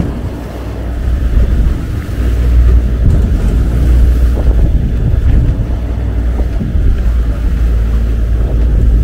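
Wind buffeting the microphone aboard a boat at sea: a heavy, steady rumble mixed with the wash of the water, a little quieter for a moment about a second in.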